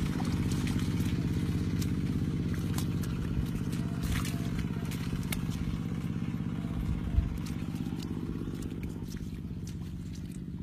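A small engine running steadily at an even pitch, slowly getting fainter, with a few scattered clicks and a low knock about seven seconds in.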